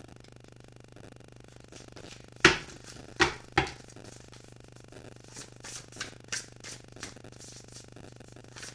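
A tarot deck handled on a cloth-covered table. About two seconds in come three sharp knocks, then a run of soft card clicks and rustles as the deck is shuffled to draw clarifying cards.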